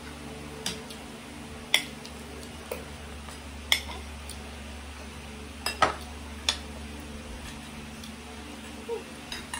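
Forks and spoons clinking against plates and bowls: about eight short, sharp clinks at irregular intervals, over a steady low hum.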